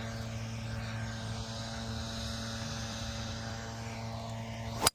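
A steady low hum with several faint steady tones, then a single sharp crack near the end: a golf club striking the ball off the tee.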